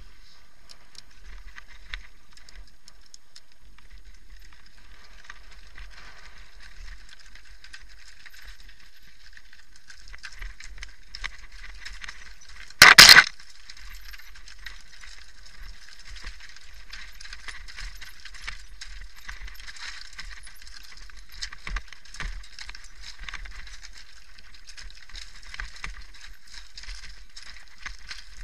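Mountain bike rattling and clinking as it rolls down a rough gravel and rock trail, with small knocks from stones under the tyres. About halfway through there is one short, loud knock.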